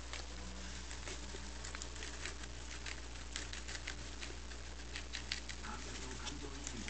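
Guinea pig munching lettuce leaves: irregular crisp crunching clicks from its chewing, over a steady low hum.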